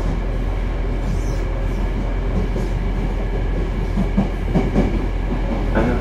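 Toei 5300 series subway train, a Mitsubishi GTO-VVVF set, running on the line: a steady rumble of wheels on rail with a few held tones over it. Irregular clicks and knocks from the rails grow stronger in the last couple of seconds.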